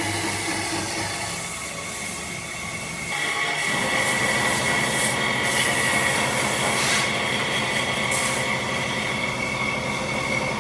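A power tool running steadily on wood with a high whine; its sound shifts about three seconds in and then runs on evenly.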